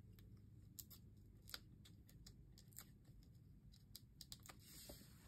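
Faint, irregular small clicks and crackles of Dimensionals foam adhesive pads being peeled off their backing sheet by hand, over a quiet room hum.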